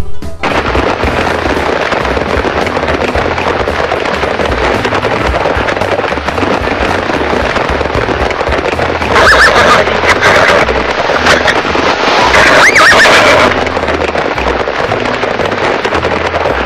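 A horse-drawn wagon running: a loud, dense, steady clatter of hooves and wheels that starts abruptly, with horses whinnying about nine seconds in and again about three seconds later.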